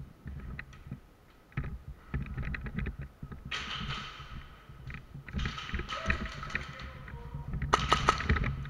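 Footsteps on a concrete floor and the rustle of worn gear as an airsoft player moves, with scattered sharp clicks and taps and a few stretches of hiss-like rustling.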